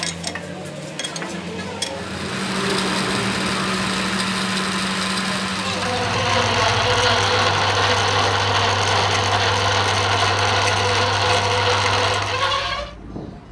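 Metal lathe running, spinning a truck axle shaft clamped by its flange in the chuck: a steady machine noise with a low hum that grows louder and fuller about six seconds in. It stops suddenly near the end.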